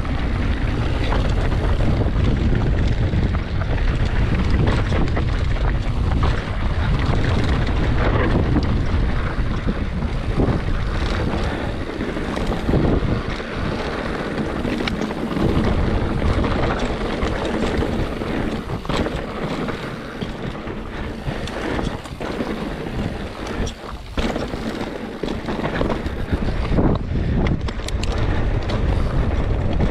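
Wind buffeting the action-camera microphone over the rumble of mountain bike tyres on a rocky dirt trail, with frequent knocks and rattles as the bike rolls over stones.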